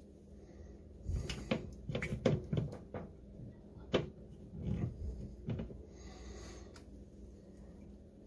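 Plastic screw cap being twisted onto a glass hot sauce bottle to seal it: a run of small clicks and knocks, then a softer scraping near the end.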